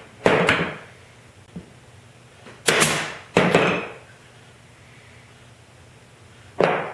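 Pneumatic nailer firing four times, each shot a sharp crack followed by a short hiss of exhaust air: once near the start, twice in quick succession a bit under three seconds in, and once near the end.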